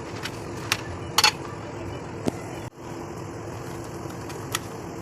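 A steady background hum with a handful of short, sharp clicks or knocks, the loudest a quick cluster about a second in.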